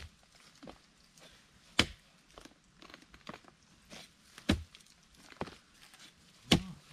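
A long-handled digging spade striking into hard, dry earth: about five sharp thunks a second or two apart, with fainter scrapes and clicks between, while digging out wild yam tubers.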